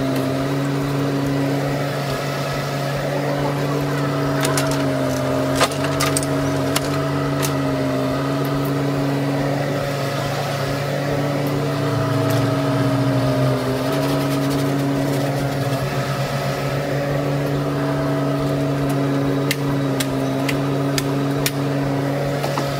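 Bobcat E10 mini excavator's diesel engine running steadily under hydraulic load while digging, its pitch sagging briefly several times as the arm works. Sharp clicks and knocks of soil and stones against the bucket come in clusters about five seconds in and again near the end.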